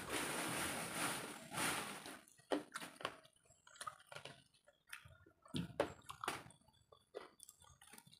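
Close-miked eating sounds of a mukbang: about two seconds of dense, noisy chewing, then scattered wet smacks and clicks of chewing mouths and fingers on food.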